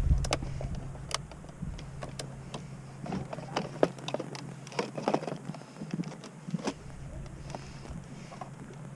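Scattered small clicks and knocks of hands handling a Futaba T6K radio transmitter as it is fitted into a mechanical control panel and its stick linkage is worked.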